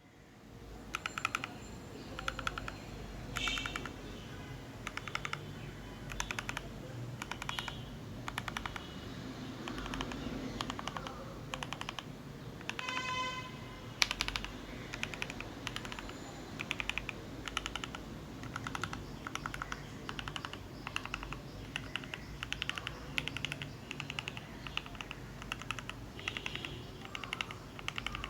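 Typing on an SK64S mechanical keyboard with Gateron optical yellow linear switches and Cherry keycaps: quick runs of keystrokes in short bursts, over a steady low hum.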